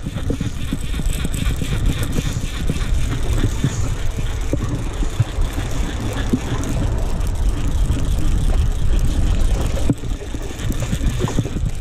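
Steady low rumble with faint rattling and clicking as a conventional fishing reel is cranked in to take up slack line.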